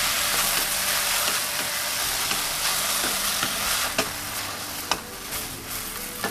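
Bean sprouts, egg and tomato sizzling in hot oil in a stainless steel wok over high heat as a wooden spatula stirs and tosses them. A few sharp knocks of the spatula against the wok come in the second half.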